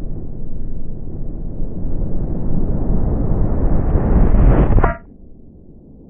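Low, heavy rumble from a washing machine blown apart by an explosive charge. The rumble runs on steadily, swells slightly and then cuts off abruptly about five seconds in, leaving a much quieter background.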